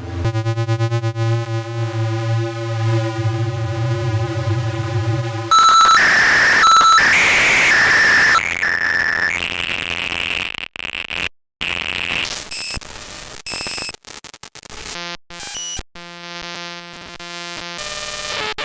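Experimental electronic synthesizer sounds. A buzzy low drone with a stack of overtones plays for about five seconds, then switches abruptly to harsh noise with piercing high tones. This part is chopped by sudden dropouts and stuttering cuts, and ends in a buzzing pitched tone.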